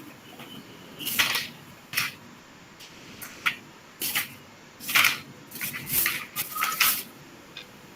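Paper pages being leafed through: a series of about eight short, papery swishes.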